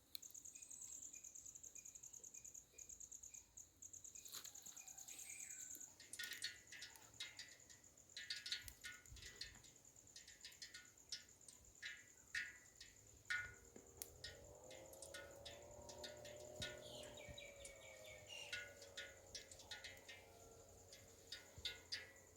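Faint outdoor ambience: an insect trilling steadily in rapid pulses for the first few seconds, then many short bird chirps. A longer, lower drawn-out call sounds for a few seconds in the middle.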